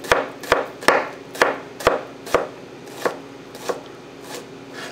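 Chef's knife finely chopping onion on a plastic cutting board: a steady knock of the blade about twice a second, growing fainter after about two and a half seconds.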